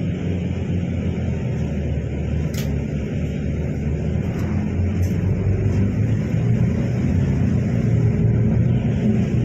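Steady low rumble of a bus's engine and road noise, heard from inside the moving bus, with a few faint ticks or rattles.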